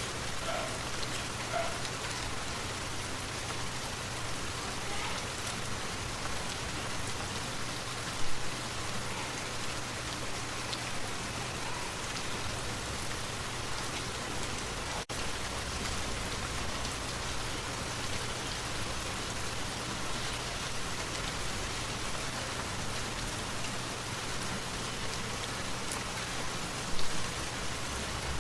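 Steady, even rush of a forest waterfall, with two brief low thumps, about eight seconds in and near the end, and a split-second dropout about halfway.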